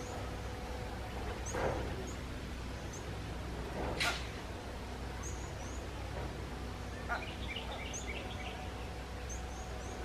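Birds chirping over a steady low rumble of outdoor background noise: faint high chirps recur throughout, and a quick run of short notes comes about seven seconds in. A sharp, brief noise about four seconds in is the loudest sound.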